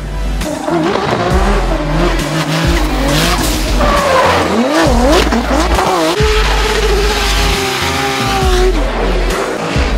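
Drift car's engine revving, its pitch swinging up and down quickly, with tyres squealing and skidding as the car slides. The revs hold steadier for a while, then drop near the end.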